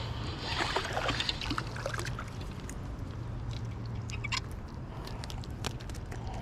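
Water splashing and trickling around a small fishing boat, busiest in the first couple of seconds, over a steady low hum, with scattered small clicks and knocks.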